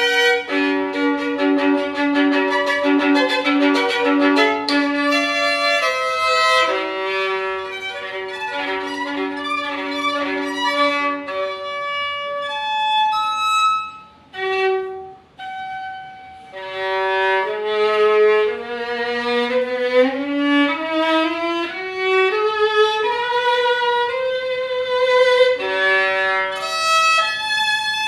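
An 1860 French Derazey School violin played solo with the bow: sustained notes with some double stops near the start, a short break about halfway, then a rising run up the strings.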